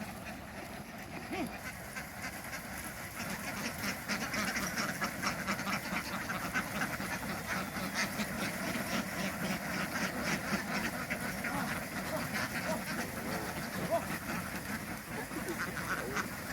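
A flock of ducks quacking, a dense overlapping chatter that grows louder and thicker about three seconds in.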